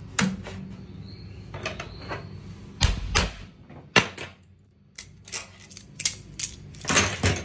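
Metal clicks, rattles and clanks of locking chain pliers being released and their roller chain pulled off a steel running tool held in a pipe vise, with a heavier knock about three seconds in and a quick run of clanks near the end.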